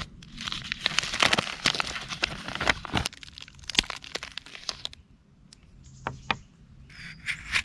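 Knife shaving flakes off a bar of dark chocolate: crisp scratching and crinkling with many sharp little cracks, easing off about three seconds in, with a few more scrapes later.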